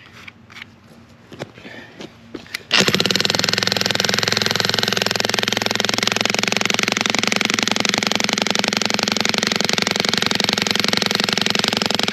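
Electric demolition jackhammer (Vevor 2200 W) hammering a chisel bit into a big rock, starting about three seconds in and running loud at a fast, even rate. Before it starts, a few light knocks.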